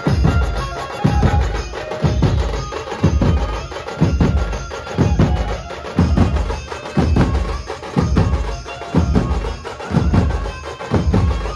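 Dhumal band music played loud: a heavy drum beat, about one big hit a second, with a melody held over it.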